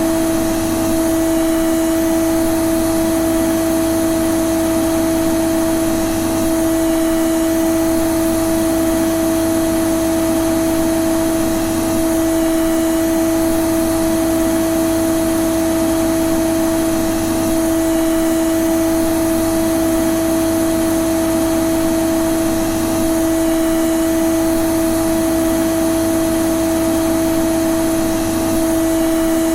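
Vacuum cleaner (hoover) running steadily: a constant loud whooshing drone with a strong, unwavering hum and its octave.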